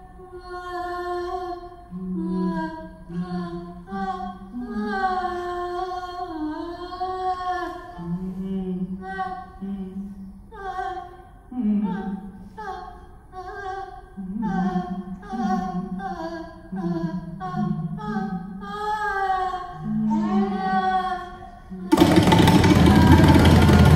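Hindustani khayal singing: slow, sustained melodic phrases with gliding notes and no drums. About 22 seconds in, a sudden, much louder dense wash of sound covers everything.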